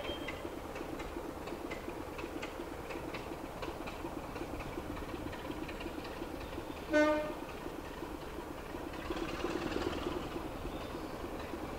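Class 24 diesel locomotive's Sulzer engine running as it approaches, with one short horn toot a little past halfway; the engine grows louder near the end.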